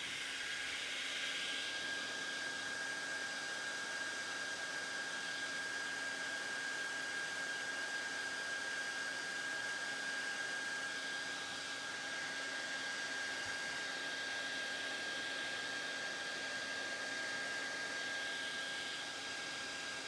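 Hair dryer running steadily: a rushing hiss of blown air with a steady high whine from its motor.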